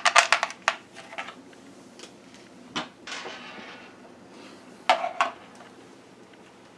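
Small clicks and clinks of a screw and hard plastic parts being handled at a wall outlet: a quick run of clicks at the start, a short rustle about three seconds in, and another couple of knocks about five seconds in.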